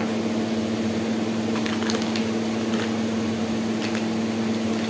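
A steady low mechanical hum runs throughout, with faint rustling and a few light clicks as plastic toy kitchen pieces are handled and taken out of a paper bag.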